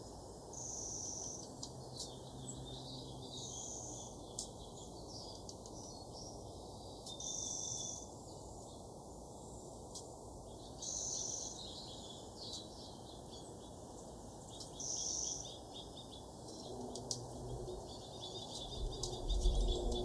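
Small songbirds calling at backyard feeders: a thin, high, steady note repeats about every three to four seconds among many quick high chirps. A louder, lower-pitched sound comes in near the end.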